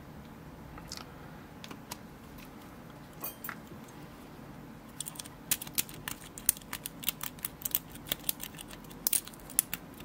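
A lock pick working the five pin stacks of a 50mm Brinks 171 series brass padlock: scattered light metallic clicks at first, then rapid clicking from about halfway through as the pins are worked toward the shear line.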